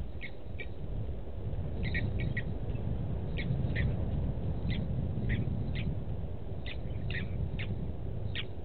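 Blacksmith lapwings calling: short, sharp, metallic notes, some single and some doubled, repeated irregularly about twice a second over a steady low rumble.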